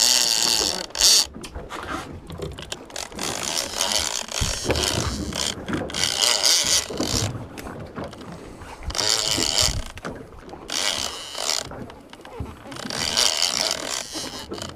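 Big conventional fishing reel being cranked in several short spells, its gears and ratchet rattling as line is wound in on a hooked blue shark.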